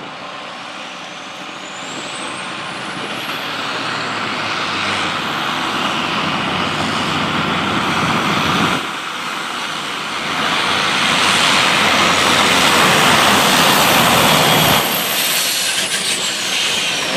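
Freightliner semi truck's turbocharged diesel engine working hard under full load as it drags a pulling sled, growing steadily louder with two brief dips. A high turbo whistle climbs in pitch over the first few seconds, holds, and falls away near the end.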